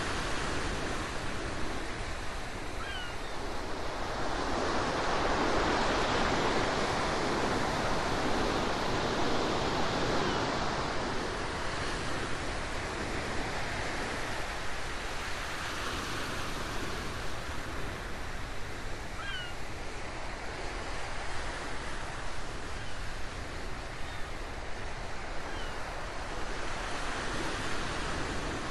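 Ocean waves washing in slow swells, the biggest rising and falling away about a quarter of the way through, with a few faint short chirps high above the surf.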